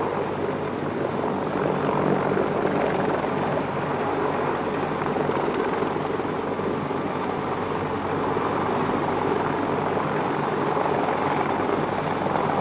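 CH-53E Super Stallion heavy-lift helicopter hovering close by with a slung load, its three turboshaft engines and main rotor making a steady, loud drone.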